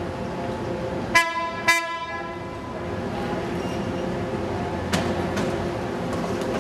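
San Diego Trolley light-rail car sounding its horn in two short toots about a second in, half a second apart, over the steady rumble of the approaching car. A single sharp click follows near the five-second mark.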